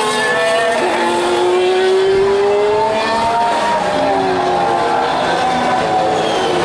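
Several open-wheel racing cars passing at speed through the corners in front of the grandstand. Their engine notes overlap, rising and falling in pitch as each car goes by.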